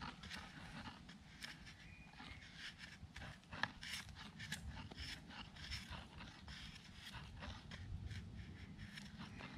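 Bushcraft knife blade shaving strips off a green wooden pole: a run of short, irregular scraping strokes, with one sharper click a little under four seconds in.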